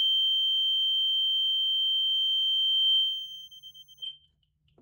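Gentex GX90S-4-30/75WR fire alarm mini horn sounding a steady, high-pitched, very loud tone. It cuts out about three seconds in and dies away over the next second.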